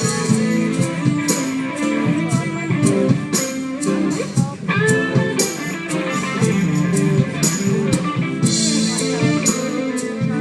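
Band music led by a guitar, with a steady beat.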